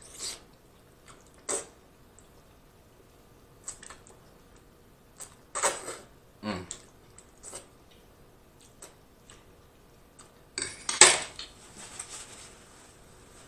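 Close-miked eating: a metal fork clinks and scrapes against a dish as spaghetti is twirled and eaten, in a few separate short bursts. The loudest clatter comes about eleven seconds in.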